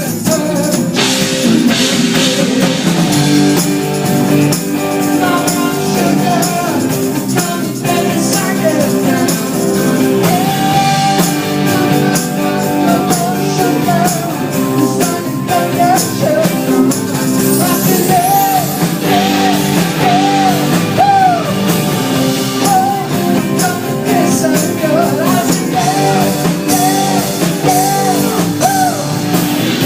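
Rock music with a singer: a song playing steadily, its vocal melody coming in clearly about ten seconds in.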